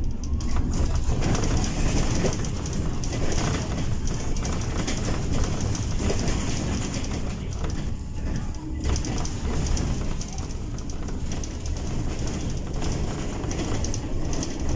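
Interior noise of a Bolloré Bluebus 12 m battery-electric city bus in motion: a steady low rumble of tyres on the road with a high hiss, no engine note.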